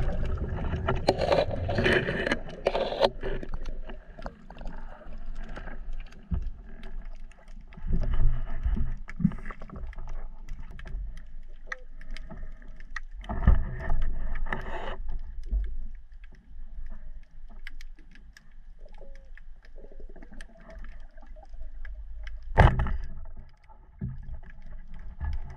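Muffled water noise heard underwater as a spearfisher swims with a pole spear, rising and falling in irregular surges. One sharp knock near the end.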